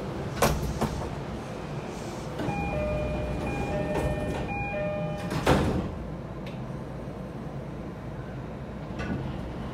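E531 series train's electronic door chime sounding in several repeated phrases as the sliding passenger doors close. The doors shut with a loud thud about five and a half seconds in, over the steady hum of the stationary train.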